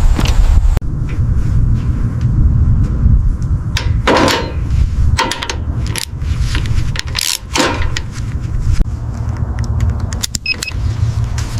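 A steady low rumble with a series of sharp clicks and knocks, from a car being handled, its doors and parts shutting.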